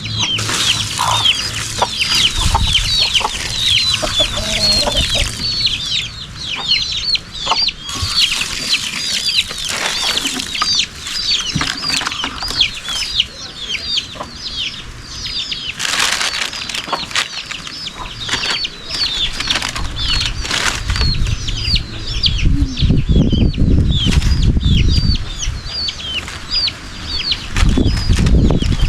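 Chickens calling: a steady stream of short, high, falling peeps with some clucking. Low rumbling noise swells about two-thirds of the way in and again near the end.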